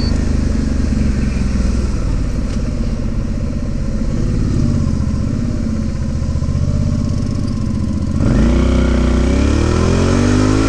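Suzuki V-Strom DL650 motorcycle's V-twin engine running at low speed in traffic. About eight seconds in, it revs up and climbs steadily in pitch as the bike accelerates.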